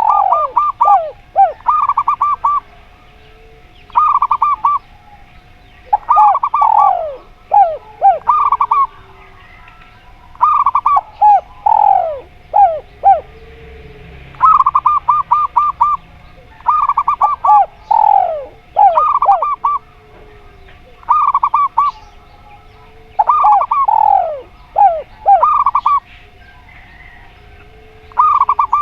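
Zebra doves and spotted doves cooing in repeated bouts. Each bout has a quick run of stuttering notes and a few falling notes, with a faint steady tone underneath.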